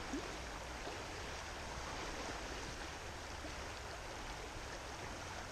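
Steady rush of river water flowing over a rocky bed.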